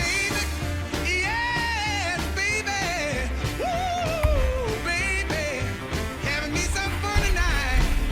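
Background song: a rock tune with a sung vocal line over bass and drums.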